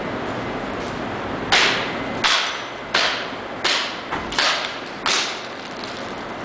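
Hammer blows striking a painted sculpture made of stiffened clothing, each a sharp crack with a short ring. There are six hard strikes about 0.7 s apart, starting about a second and a half in, with one lighter tap among them.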